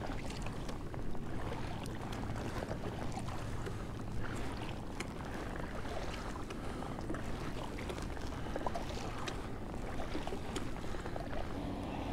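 Water splashing and trickling against a kayak's hull as it moves across calm water, over a steady wind rumble on the microphone, with small clicks here and there.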